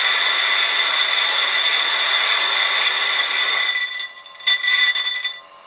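High-speed-steel tool bit facing a cast iron faceplate on a vintage Karger lathe, giving a steady high-pitched squeal over the hiss of the cut. The lathe is running fast enough to burn up the high-speed-steel bit. The squeal dies down about four seconds in, with a brief loud burst a little later.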